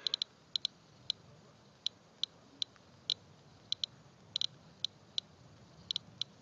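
S.E. International Inspector Geiger counter clicking at irregular, random intervals, about three clicks a second, each click one detected radiation count. It is measuring a rainwater sample at roughly 116 to 122 counts per minute, a rate the user takes for excess radiation.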